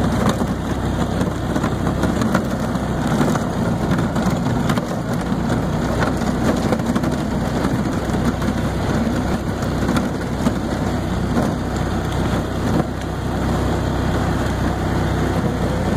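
Golf cart running steadily as it drives over a rough grass track, with occasional knocks and jolts from the bumps.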